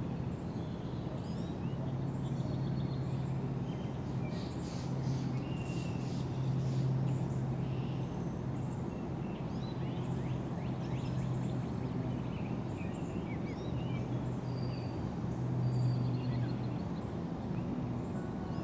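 Birds chirping and calling, short whistles and trills coming and going, over a steady low hum.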